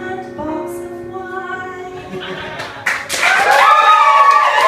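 The song's last held notes on an electronic keyboard with singing, fading down. About three seconds in the audience breaks into loud applause mixed with voices.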